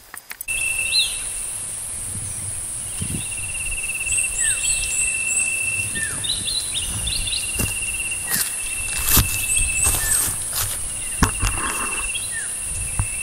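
Field ambience of insects and birds: a steady high-pitched insect whine and a rasping insect trill that comes and goes in long stretches, with birds giving short falling chirps. A few soft knocks sound through it.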